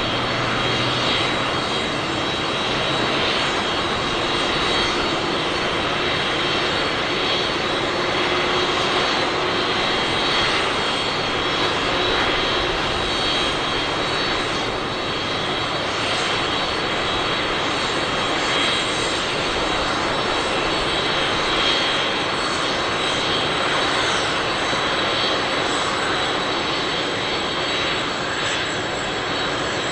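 Boeing 747-400D's four turbofan jet engines running steadily: a loud, even jet roar with a thin high whine held through it.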